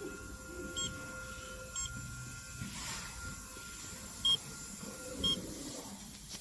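Touch screen of a car A/C refrigerant recharge machine giving short high beeps, four in all in two pairs a second apart, as touches register during screen calibration, over the machine's steady hum.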